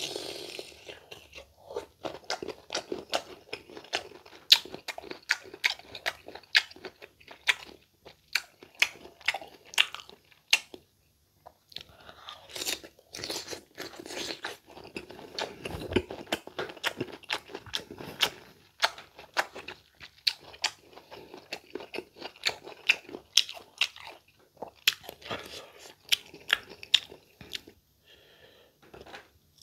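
Close-up crunchy chewing of unripe green mango: a bite right at the start, then a rapid run of sharp, crisp crunches as the firm fruit is chewed, with a couple of short pauses.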